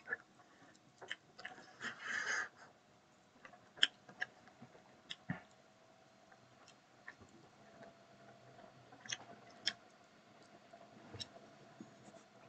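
A person biting into and chewing food close to the microphone: a short noisy crunch about two seconds in, then scattered faint clicks and mouth sounds.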